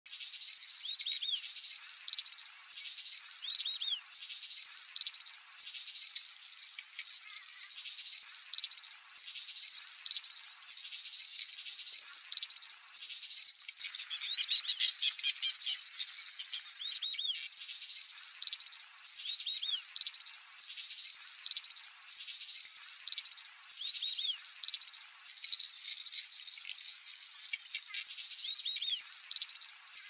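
White-faced whistling-ducks giving their clear whistled calls again and again, each a short rising-and-falling whistle, with a denser run of calls about halfway through, over a steady high insect drone.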